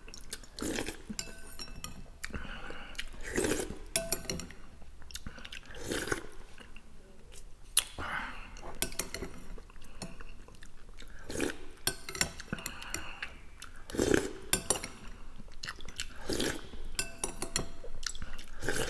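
Close-up eating sounds: a metal spoon clinking and scraping against a glass bowl of borscht at irregular moments, between chewing and sipping from the spoon.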